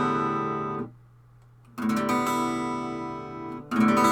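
Guitar chords strummed and left to ring: one chord dies away in the first second, then after a short gap a chord is strummed about two seconds in and another near the end.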